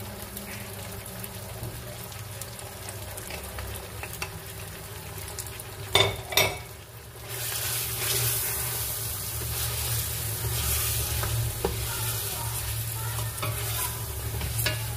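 Beef, onions and tomato paste frying in oil in a stainless-steel pot while spices are stirred in with a wooden spoon. Two sharp knocks come about six seconds in, and after them the sizzling turns louder.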